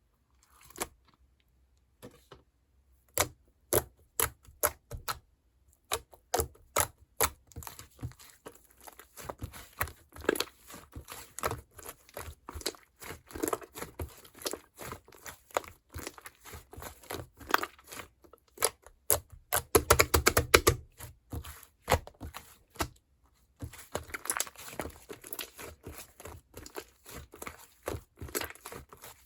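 Slime being squeezed, poked and stretched by hand, making quick sticky clicks and pops. The clicks start sparse about a second in, grow dense, are loudest about two thirds of the way through, and pause briefly soon after.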